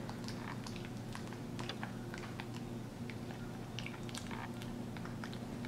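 Capuchin monkey chewing a mushy, overripe banana: faint, irregular smacking clicks of mouth and lips, with no rhythm.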